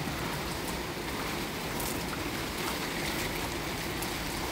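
Steady rain falling, an even hiss of water that holds level throughout.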